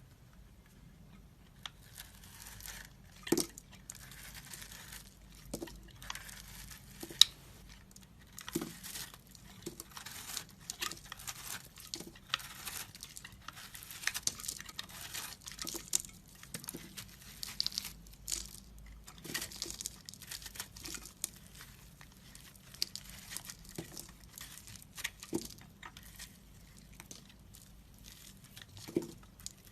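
Dry soap crunching and crackling as it is broken up, in irregular crumbly scrapes with a few sharper knocks.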